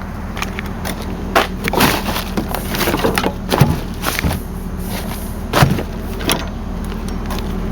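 Truck engine idling steadily, with scattered sharp knocks, thuds and clatter over it as the trailer load is checked and secured.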